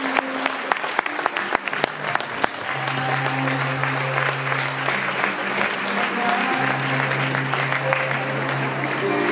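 Audience clapping, dense for the first couple of seconds and then thinning out, over background music with long held notes.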